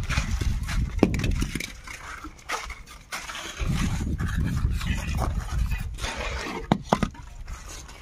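Sharp clinks of a mason's trowel against brick: one about a second in and two close together near the end. Low rumbling noise on the phone microphone runs under them.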